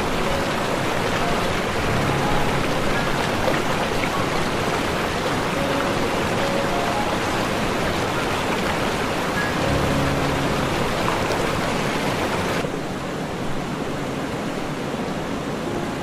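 Steady rush of heavy rain pouring onto water, with faint music notes beneath. About twelve and a half seconds in, the hiss turns duller as its upper range drops away.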